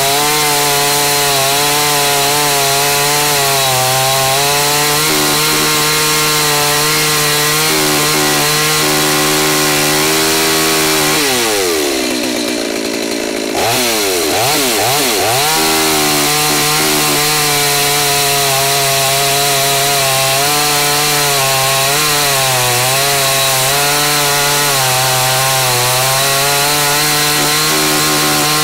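G388 two-stroke chainsaw running hard and cutting through a log, its engine held at high revs under load. About eleven seconds in, the engine pitch drops away and briefly fades, then climbs back to full speed as cutting resumes.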